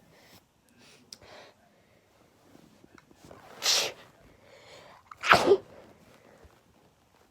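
Sneezing fit: two sneezes about a second and a half apart, the second louder and voiced, after a few quiet breaths.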